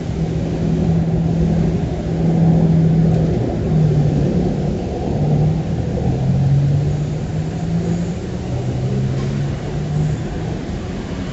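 City street traffic: a vehicle engine's steady low drone that steps down in pitch a few times, over a low rumble of passing traffic.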